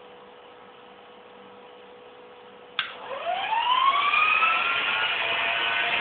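Titan 450 electric RC helicopter spooling up: a click about three seconds in, then the motor's whine rises in pitch as the main rotor comes up to speed, levelling off into a steady high whine.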